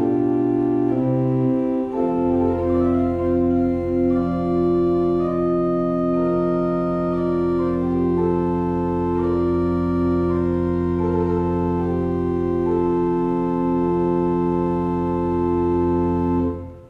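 Organ playing the closing bars of a tiento de falsas, a slow 17th-century Spanish organ piece of held, clashing chords. A low bass note enters about two seconds in and holds under the slowly moving upper voices until the last chord is released just before the end.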